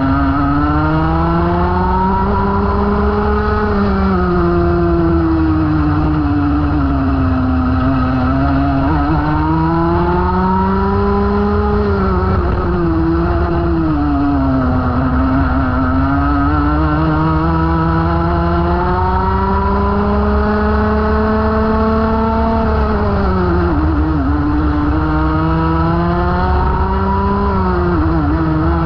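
Rotax Max 125cc two-stroke kart engine heard onboard at race pace, its pitch climbing steadily along each straight and falling quickly as it slows for each corner, four times over.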